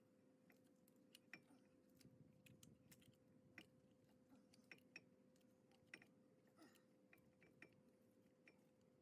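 Near silence: faint, irregular small clicks and taps of parts and tools being handled during front brake work, over a faint steady hum.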